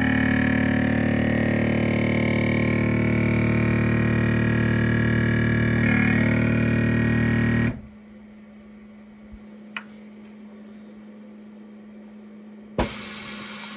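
Avid Armor USV32 chamber vacuum sealer's pump running with a loud, steady hum as it pulls the air out of the chamber, cutting off abruptly about eight seconds in. A quieter steady tone follows while the bag is heat-sealed, with a short click. About a second before the end comes a sharp thump and a hiss as air is let back into the chamber.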